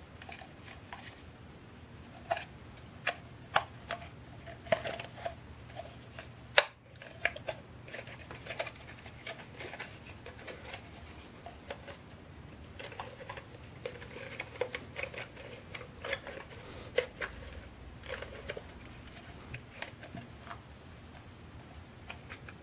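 Hard plastic parts of a Dyson V6 cyclone assembly being handled and turned over in the hands: scattered clicks and light knocks, the sharpest and loudest about six and a half seconds in.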